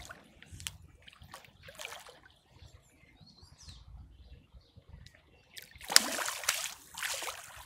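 A hooked wels catfish thrashing at the water surface during the fight, splashing. A short splash comes right at the start and a few smaller ones follow over the next two seconds. A big, loud burst of splashing comes about six seconds in and lasts over a second.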